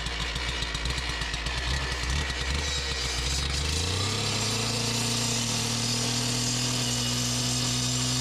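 Two-stroke gas cut-off saw idling, then revved up about four seconds in to a steady full speed as its blade cuts into the concrete of the septic tank to trim it down.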